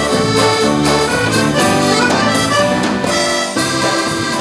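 Live band music: accordion playing over a drum kit and keyboards.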